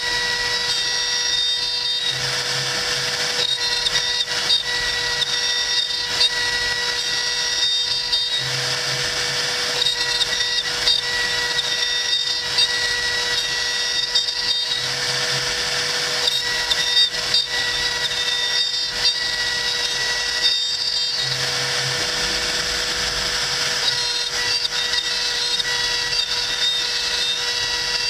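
CNC router spindle running with a steady high whine while its bit cuts into hardwood, the cutting noise swelling and easing as the tool moves along its path. A low hum comes and goes about every six seconds.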